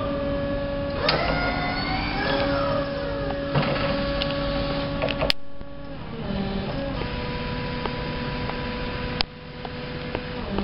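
Crown RC3020-30 stand-up electric forklift driving and turning: its electric drive whines, rising and falling in pitch as it speeds up and slows, over a steady electric hum. A few sharp clicks come through, one about five seconds in and another near the end.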